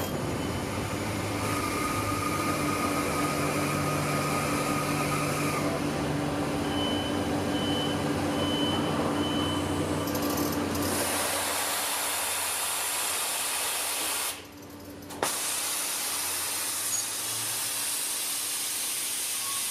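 A large industrial press in a car factory working: a steady machine hum with held tones and a few short beeps. About halfway through, a loud high hiss sets in; it breaks off for a moment and comes back with a click.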